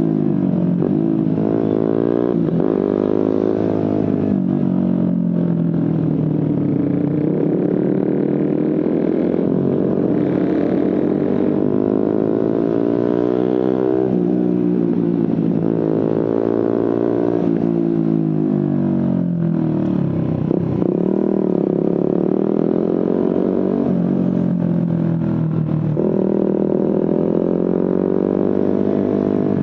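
Suzuki GSX-R150's single-cylinder engine through an aftermarket Prospeed exhaust, ridden on the road: the engine pitch climbs and drops several times as the bike accelerates, shifts and slows.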